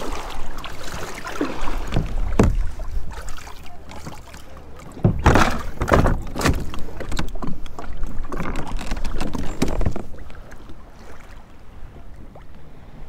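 Fishing kayak being paddled: the paddle blades dip and splash in the water in irregular strokes, with some sharp knocks among them. The strokes stop about ten seconds in and it turns quieter.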